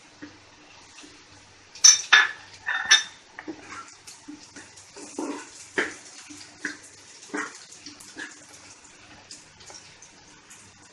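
Wooden spatula scraping and knocking against a black wok as diced vegetables and potato cubes are stirred and fried, over a faint steady sizzle. The sharpest knocks come in a cluster about two seconds in, then irregular scrapes follow.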